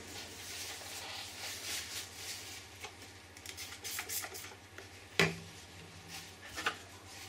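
Paper towel rubbing and rustling over the plastic instrument-cluster housing and its chrome rings, with a sharp knock about five seconds in and a lighter one near the end, over a steady low hum.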